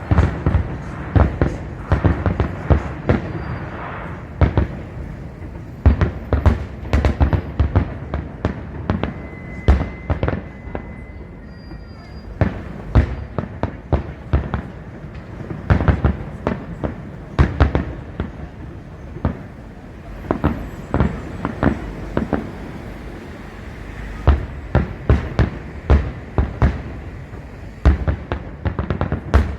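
Fireworks display: aerial shells bursting in rapid clusters of bangs, with short quieter lulls between volleys.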